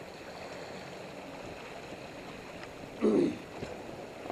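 Water rushing and gurgling along the hull of a J30 sailboat under way, with one brief loud low burst about three seconds in.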